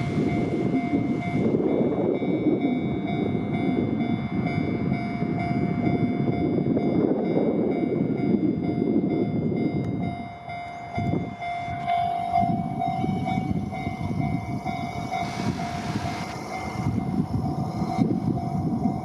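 Railroad crossing warning bell ringing in a steady repeating tone while a train passes with a loud rumble of wheels on rails. The rumble dips briefly about ten seconds in, then carries on more weakly under the bell.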